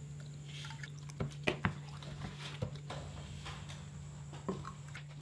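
Water poured from a small plastic cup into a bowl of thick slime, with a few sharp drips and plops as it lands, over a low steady hum.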